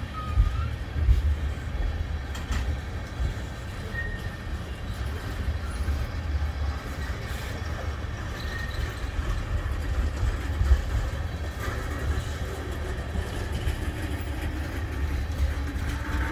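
Freight train of tank cars rolling past: a steady low rumble of steel wheels on rail, with a few sharp knocks from the running gear, louder about a second in and near eleven seconds in.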